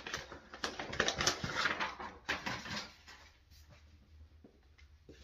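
Rustling of a folded quilted comforter being handled and unfolded. It is loudest for the first three seconds, then drops to faint scattered handling sounds.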